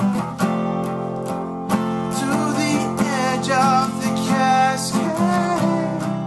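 Two acoustic guitars strummed together, with a man's singing voice joining about two seconds in and holding a wavering melody line until near the end.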